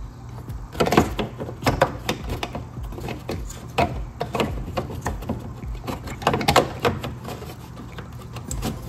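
Irregular plastic clicks, knocks and rattles as a side marker's black plastic backing piece is worked loose by hand from the fender's marker opening. The sharpest cracks come about a second in and again between six and seven seconds.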